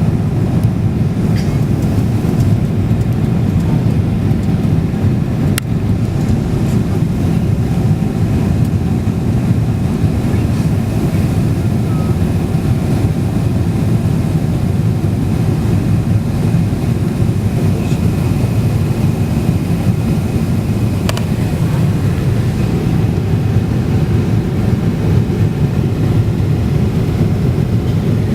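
Steady low roar of an airliner heard from inside the passenger cabin, the engines and rushing air blending into one constant rumble with a faint steady whine above it. A couple of faint clicks sound in the cabin.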